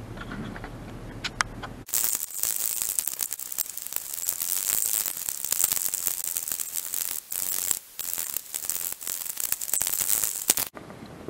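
Dense crackling and rustling of footsteps on dry leaves and brush, with vegetation scraping against a body-worn camera. It cuts in sharply about two seconds in and stops abruptly near the end, with a couple of short breaks.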